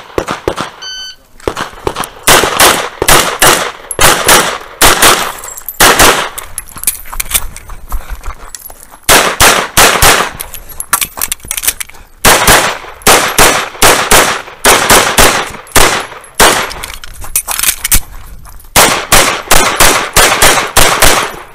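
Shot-timer start beep about a second in, then rapid pistol fire from a Tanfoglio Stock II. The shots come in quick pairs and strings of several, with short pauses between groups of targets.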